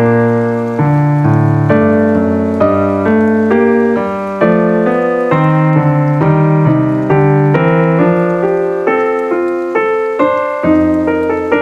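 Piano music: a melody of struck notes, each fading after it is hit, over lower held notes, moving at about two to three notes a second.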